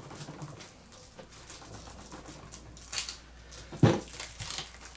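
Quiet handling of a small parcel: faint rustles and light ticks, with a short hissy rustle about three seconds in and a louder brief knock or thump just before four seconds.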